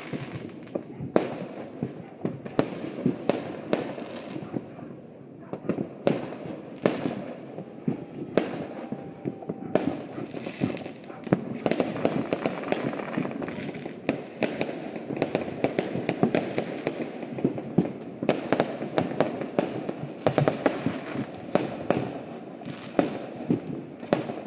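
Fireworks and firecrackers going off across a city: an irregular, dense run of sharp bangs and pops, several a second, over a constant background rumble of more distant bursts.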